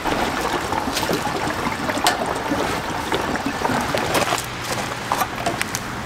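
Steady trickle of liquid pouring, with a few light clicks.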